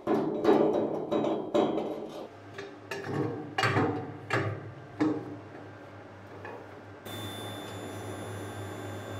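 A series of sharp metal knocks and taps as stainless steel parts are fitted into place. About seven seconds in, a TIG welding arc starts and runs steadily, a low hum with a thin high tone over it.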